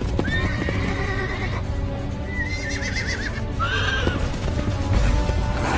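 Horses whinnying, three calls with a wavering, gliding pitch, over background music.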